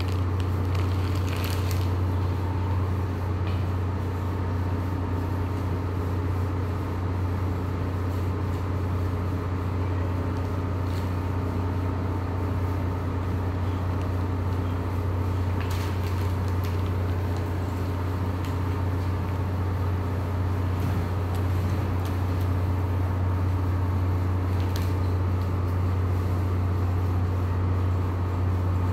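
A steady low machine hum that does not change, with a few faint short clicks at scattered moments.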